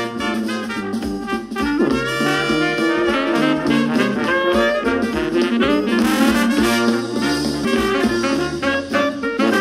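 Background music: a jazzy tune carried by brass horns, playing steadily.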